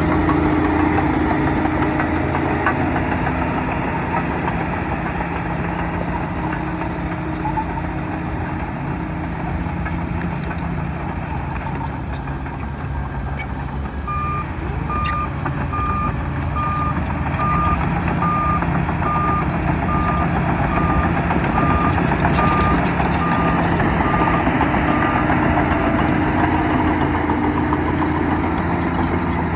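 Bulldozer's diesel engine running steadily, with its reverse alarm beeping a bit over once a second through the middle stretch as the machine backs up.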